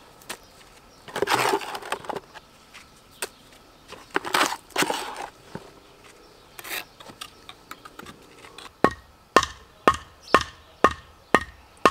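Irregular crunching and cracking. From about nine seconds in, a steady run of sharp strikes follows, about two a second, each with a short metallic-sounding ring.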